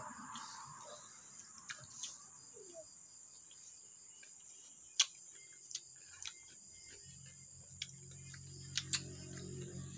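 Crickets chirring in a steady high, even tone, with a few sharp clicks scattered through, the loudest about halfway. A low steady hum comes in about seven seconds in.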